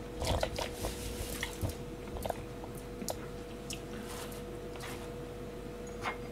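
Fingers picking shredded cabbage out of a plastic tub and handling dishes: faint rustling and scattered light clicks, over a steady faint hum.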